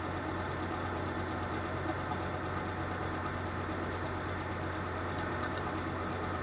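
Engine of a hydraulic wood chipper running steadily at idle, an even hum with no change in speed.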